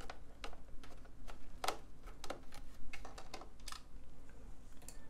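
Phillips screwdriver backing a screw out of a plastic UPS case: a run of small, uneven clicks and taps, a few of them sharper.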